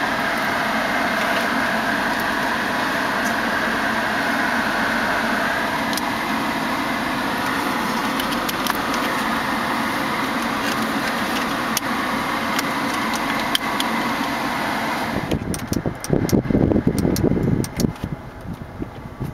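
Cabin climate-control blower fan running steadily with an even rushing hiss. It cuts off abruptly about fifteen seconds in, and uneven, louder sounds follow.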